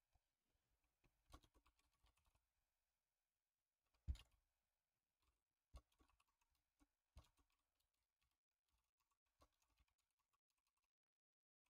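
Faint, irregular keystrokes on a computer keyboard, with one louder key strike about four seconds in.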